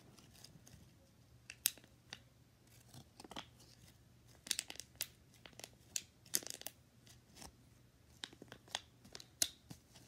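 Homemade pop-it fidget made from a cut-out piece of a plastic water bottle's side, pressed with fingertips: thin plastic snapping in and out with irregular sharp clicks and crackles, some single and some in quick clusters.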